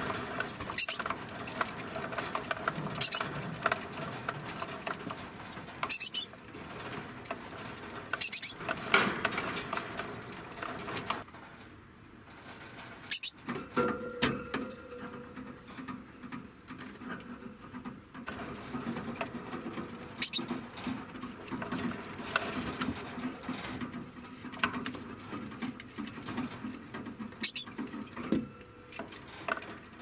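A degu moving about its wire cage by the hay rack: steady rustling and pattering, with a handful of sharp clicks and taps spread through.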